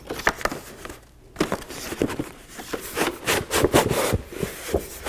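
Cardboard filter carton being handled and opened: an irregular run of rustling, scraping and light knocks of cardboard as the box is turned on end and its end worked open.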